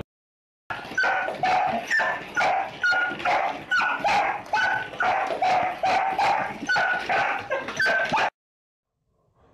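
A dog yipping over and over, high-pitched, about two yips a second. The yipping cuts off suddenly near the end.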